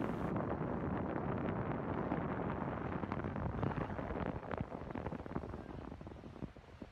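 Wind buffeting the microphone: a loud, ragged rumbling rush that eases off after about four and a half seconds.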